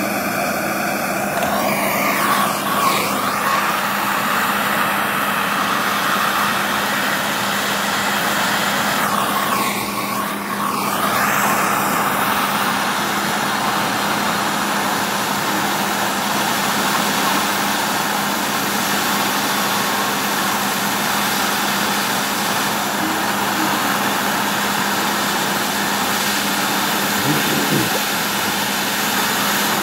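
Handheld gas torch flame burning with a steady hiss as it melts scrap lead in a steel crucible.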